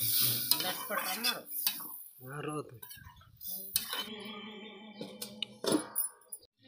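A metal spoon clanking and scraping against a large aluminium kadhai while thick curry is stirred. About two-thirds of the way through, a metal lid is set on the pan with a ringing clank.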